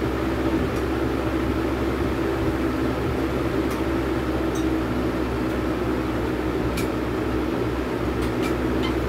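Steady mechanical hum and rush of running machinery, with a few light clicks in the second half.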